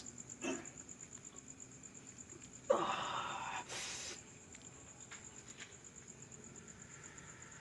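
A cricket chirps throughout, a steady high, rapidly pulsing trill. A little under three seconds in, a person lets out a sudden throaty burst of breath lasting under a second, followed by a short hissing breath.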